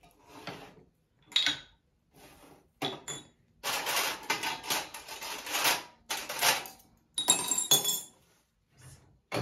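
Dishes, glasses and cutlery clinking and clattering on a round tray as they are set out and moved, in several short bouts with pauses between.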